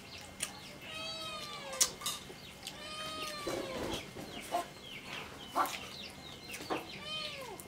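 Domestic hens clucking, a few drawn-out calls that arch in pitch, with short wet clicks and smacks from eating rice with the hands.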